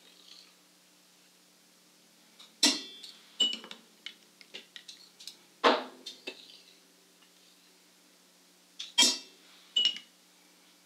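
Metal cupping spoons clinking against ceramic cupping bowls while the crust and grounds are cleared from the surface of the cupped coffee. There are several sharp clinks a few seconds apart, some with a short ring.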